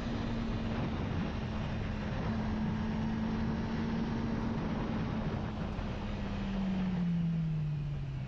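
Honda CBR sport motorcycle's engine running at steady revs while riding, under heavy wind rush on a helmet-mounted camera. In the last couple of seconds the engine note falls as the revs drop.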